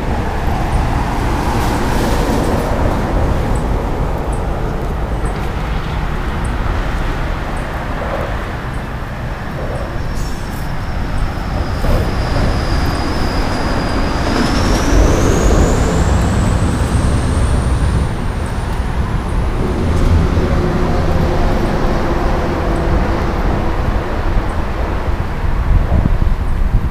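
Steady roar of interstate highway traffic, with a thin high whine that rises in pitch about halfway through.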